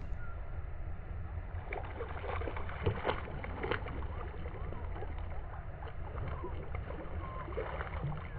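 Muffled water sloshing and splashing over a steady low rumble, with many small irregular splashes, the loudest about three seconds in.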